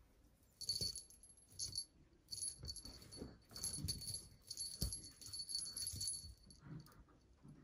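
Small jingle bell on a cat wand toy jingling in repeated bursts as a kitten bats and paws at it, with soft low thuds among the jingles. The jingling starts about half a second in and stops shortly before the end.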